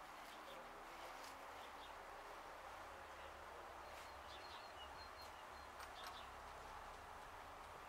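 Faint outdoor ambience: distant birds chirping now and then over a steady background hiss.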